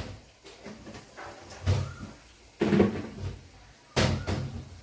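Several dull thumps and knocks at uneven gaps, the kind made by cupboard doors or pots being handled off to one side, with the last two close together near the end.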